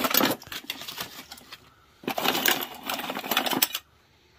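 Small objects clattering and rattling as hands rummage through a box of odds and ends, in two spells of dense, rapid clatter, the second starting about two seconds in.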